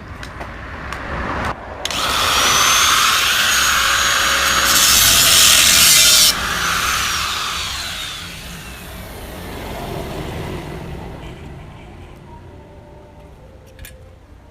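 Angle grinder working metal, starting about two seconds in and loudest a little past the middle. It is then switched off and its whine falls in pitch as the disc spins down.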